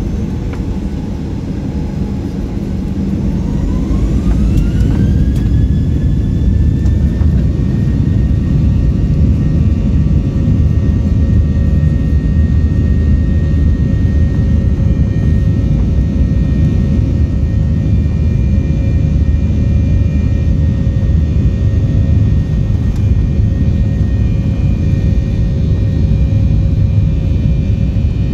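Airliner's jet engines spooling up for takeoff, heard from inside the cabin: a whine rises over about two seconds a few seconds in, then holds steady over the loud rumble of the takeoff roll.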